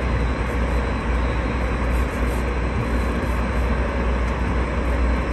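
Steady low rumble and hiss of wind buffeting the microphone on an open boat at sea.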